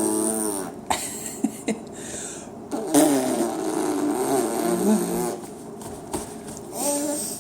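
A person making silly vocal noises with a wobbling, quavering pitch, in a couple of stretches separated by short pauses and a few small clicks.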